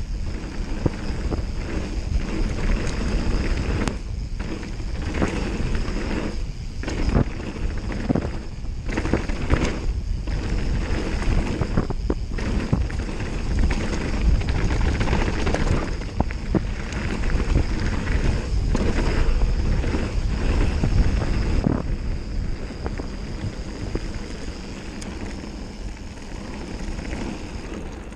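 Mountain bike descending fast on a gravel trail: tyres rolling over loose stone and wind rushing on the microphone, with frequent short knocks and rattles from the bike over bumps. It gets quieter in the last few seconds.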